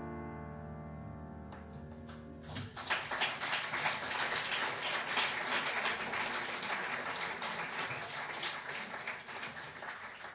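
The final chord of piano, double bass and cymbal rings out and fades. About two and a half seconds in, the audience breaks into applause, which carries on and begins to taper near the end.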